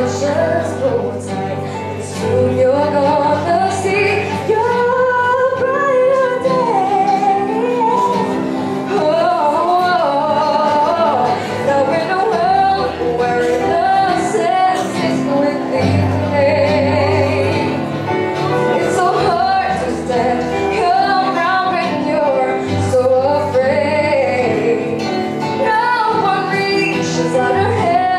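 A young girl sings a slow song into a microphone, accompanied by a strummed acoustic guitar. The voice carries a bending melody in phrases over chords that change every few seconds.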